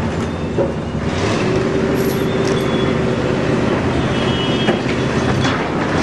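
Truck-mounted hydraulic crane running steadily as its boom is swung and lowered: a continuous engine and machinery rumble, with a held whine through the middle and a few sharp clanks.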